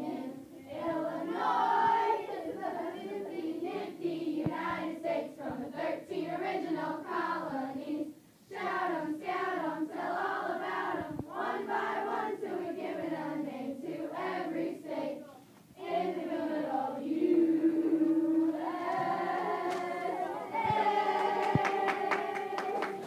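A group of schoolgirls singing a state rap together in unison, with two short breaks, moving into longer held notes near the end.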